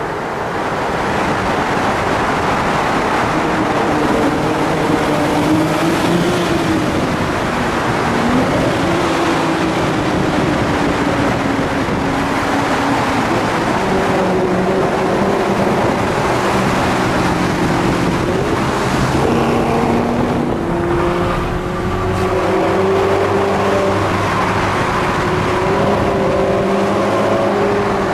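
Sports car engines revving and accelerating through a tunnel, the exhaust note echoing. The pitch climbs and drops back at gear changes, about a third of the way in and again about two-thirds in.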